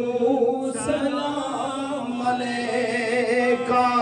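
Men's voices chanting a Punjabi naat unaccompanied, drawing the syllables of the 'salam' refrain out in long held notes.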